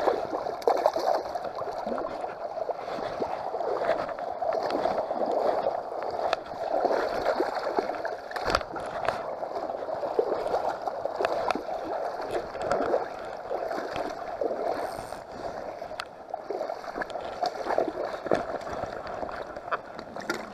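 A hooked pink salmon splashing and thrashing in shallow river water as it is reeled to the shore, over the running river. One sharp knock about halfway through.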